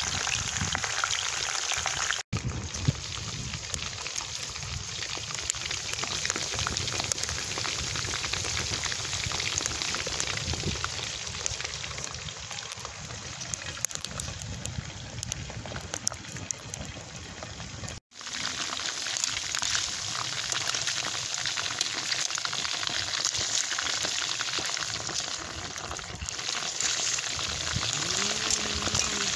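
Hot oil sizzling and crackling steadily as chicken wings deep-fry in a cast iron skillet over a wood fire. The sound breaks off abruptly twice.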